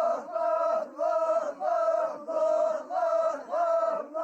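Sufi dhikr: a group of men and women chanting a short phrase in unison, over and over in an even rhythm of about one and a half chants a second, repeating the divine names.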